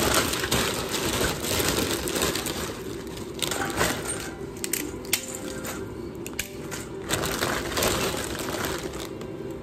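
Dried bean curd sticks (kembang tahu) being snapped and dropped into a stainless steel bowl, with the plastic packaging crinkling: a run of sharp crackles, rustles and small clinks.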